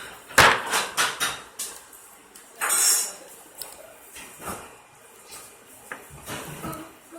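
Small metal clicks and clinks of needle-nose pliers and cable handling as heat-shrink tubing is worked onto a charging cable, with a short scraping rustle about two and a half seconds in.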